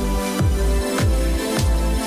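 Background music: an electronic track with a steady beat of deep, pitch-falling kick drums under sustained synth chords.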